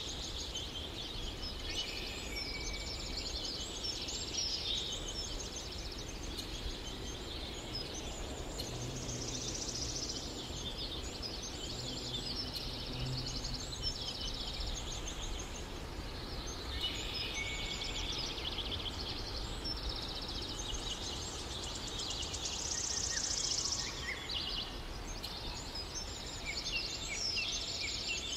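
A chorus of birds chirping and trilling without a break, many calls overlapping.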